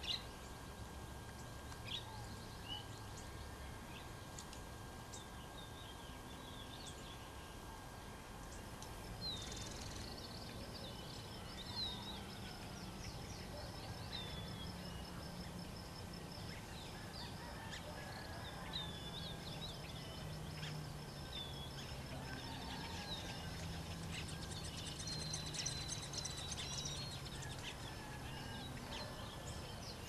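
Birds calling in woodland: many short, high chirps and down-slurred notes, scattered and repeated, over a faint steady high tone. A rapid, fine high trill joins near the end.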